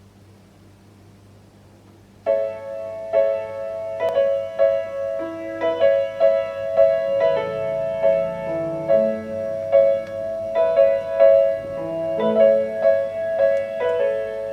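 Piano introduction of a song played back through JBL 240Ti loudspeakers, starting suddenly about two seconds in with a steady flow of notes. Before it there is only a faint low hum.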